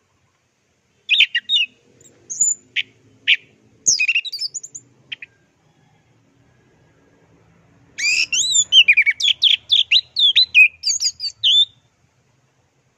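Orange-headed thrush (anis merah) singing: a few short, separate notes in the first few seconds, then after a pause a fast, continuous run of varied, sliding high notes lasting about four seconds, the rapid 'teler' style of song.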